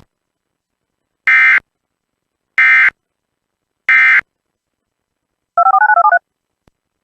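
EAS SAME end-of-message data bursts: three short screeching digital bursts about a second and a quarter apart, marking the end of the tornado warning. They are followed by a quick run of about nine DTMF touch-tone beeps.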